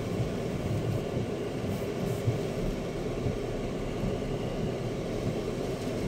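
Chery Tiggo 7 Pro SUV manoeuvring slowly on a wet road in the rain, heard inside the cabin as a steady low rumble of engine, tyres and rain.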